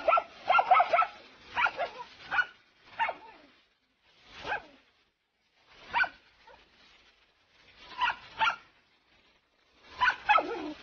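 A dog barking in short repeated barks while confronting a snake: a quick run of barks at first, then single barks a second or two apart, and another quick run near the end.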